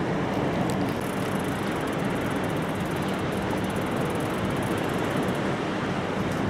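Steady rush of wind and sea wash, even throughout, with no distinct knocks or clicks.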